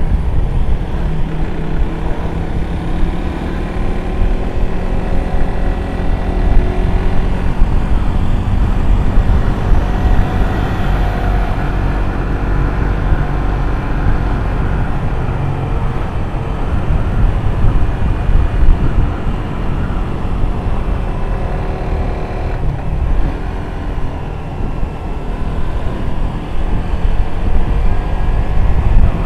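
Suzuki GSX-R150's single-cylinder engine running as the motorcycle is ridden along a road, its pitch slowly rising and falling with the throttle over a dense low rumble of riding noise.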